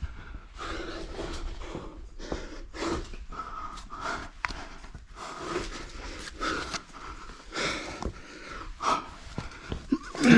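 Heavy, irregular panting of a climber straining up a tight rock chimney: a quick run of hard, noisy breaths, some with a faint voiced grunt.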